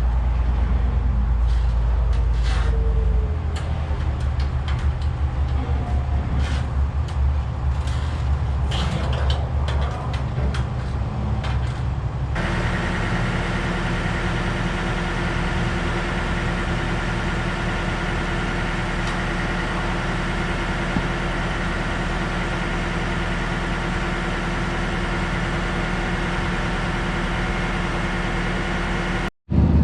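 An engine running steadily, with scattered clicks and knocks over it. About twelve seconds in the sound changes abruptly to a steadier, even engine hum.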